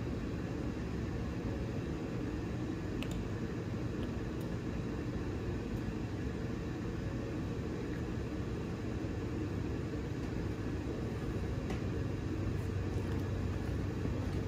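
Shop heater running with a steady low rumble and hum, with a few faint ticks.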